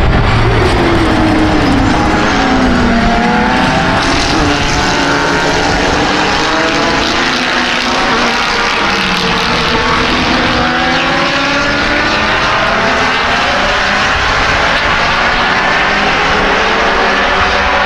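A pack of sports racing cars passes at speed, several race engines revving and changing gear at once. The closest car's engine note falls in pitch as it goes by near the start, and the engine noise carries on as the field pulls away around the circuit.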